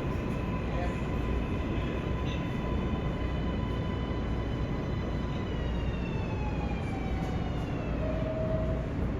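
New York City subway train (R143/R160 L train cars) running with a steady rumble; about halfway through its electric motor whine, several tones at once, falls in pitch over about three seconds as the train slows.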